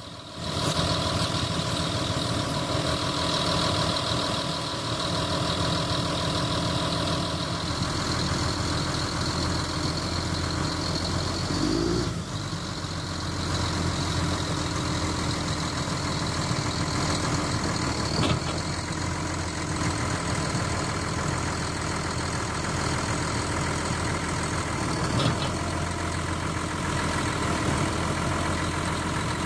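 Caterpillar D7R crawler dozer's diesel engine running steadily as the machine crawls slowly forward to load onto a lowbed trailer, with three faint knocks spread through.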